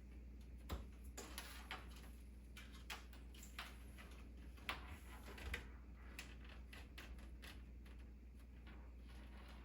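Faint scattered clicks and brief scraping handling noises of small computer parts and cables being worked on, over a steady low hum.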